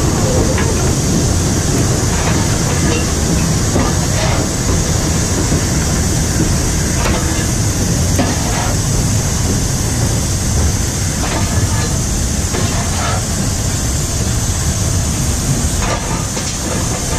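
LNER Class A4 steam locomotive 60009 running at speed, heard from its footplate: a loud, steady rumble and hiss, broken by irregular sharp clicks of the wheels passing over rail joints.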